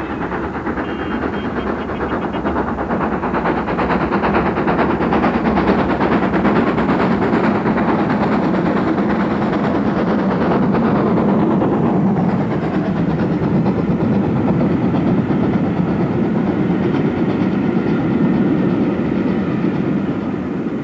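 GWR Castle class four-cylinder 4-6-0 steam locomotive passing at speed with a train of coaches, its exhaust beating fast. About twelve seconds in, as the engine draws away, the sound gives way to the lower, steadier rumble of the coaches' wheels on the rails.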